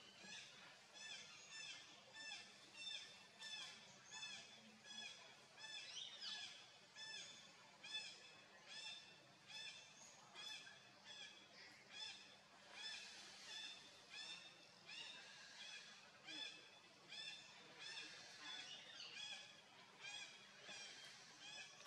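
Faint animal calls: short, high chirping notes repeated in a steady rhythm, about two a second.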